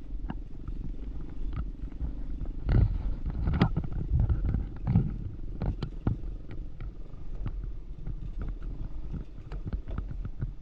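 ATV engine running with a low, pulsing rumble, under frequent rattles and clicks and a few heavier thumps a few seconds in.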